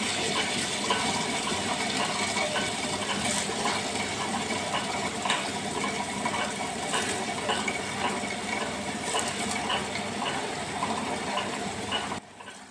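Orient table-top wet grinder running, its grinding stones turning in the drum on soaked rice and urad dal: a steady wet churning with many small clicks, cutting off suddenly shortly before the end.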